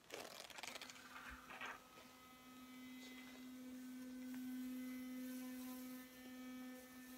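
Philips Sonicare FlexCare Plus electric toothbrush handle with a snap-on replacement head, switched on after a few clicks of handling and running with a faint, steady hum.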